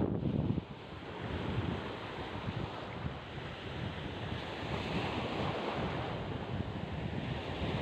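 Surf washing on the shore, with wind buffeting the microphone in gusts, strongest in the first half second.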